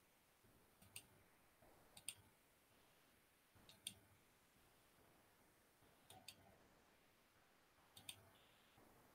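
Faint, sharp clicks of a computer mouse, about eight spread out irregularly, several of them in quick pairs like double-clicks, during setup of a slide-show screen share.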